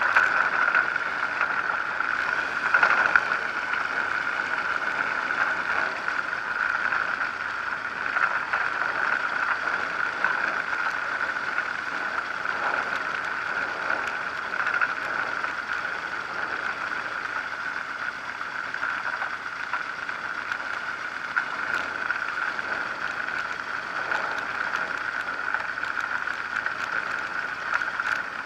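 Zenair 701 light aircraft's engine idling as the plane taxis along a dirt airstrip, a steady drone heard through a camera mounted under the wing.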